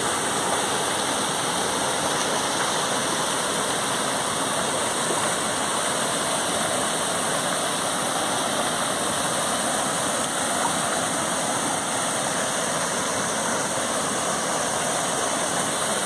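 Steady, unbroken rush of a small waterfall pouring into a rock pool.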